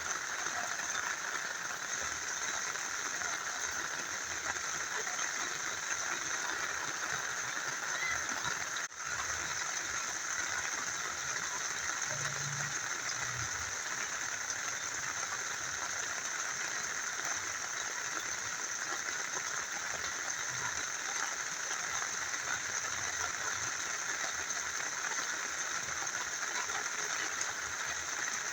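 Rain falling together with a small river flowing, a steady, even hiss of water that dips briefly about nine seconds in.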